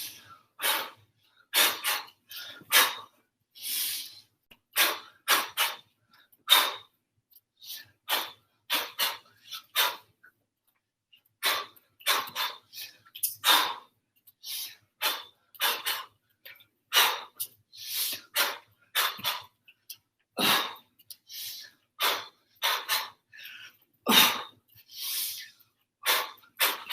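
Sharp, forceful exhalations, one short hissing burst with each kick at about one a second, with a brief pause near the middle.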